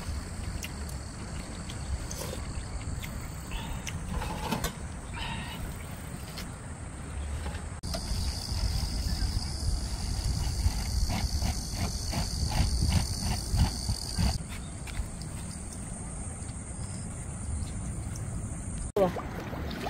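Insects trilling outdoors in steady high-pitched tones over a low rumble. The insect sound changes abruptly about 8 and 14 seconds in, and a run of short ticks comes between about 10 and 14 seconds in.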